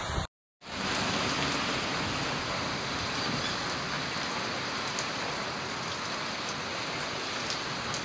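Steady rain falling in a thunderstorm, an even hiss with a few faint drop ticks, beginning about half a second in after a brief cut.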